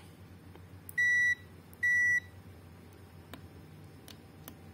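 Digital multimeter beeping twice, two short high beeps about a second apart, as its probes are set on desoldered diodes to test them. A few faint ticks of the probe tips follow.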